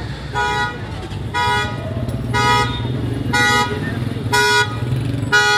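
Car horn sounding in short, evenly spaced beeps about once a second, six in a row, over a steady low street-traffic rumble.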